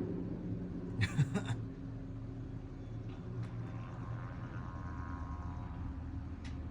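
Distant helicopter's steady low drone, with a brief noisy burst about a second in.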